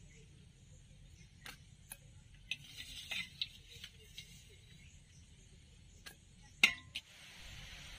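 Scattered light clicks and clinks from a stainless steel bowl of small raw prawns being handled, with one sharper click about six and a half seconds in. A steady hiss comes in near the end.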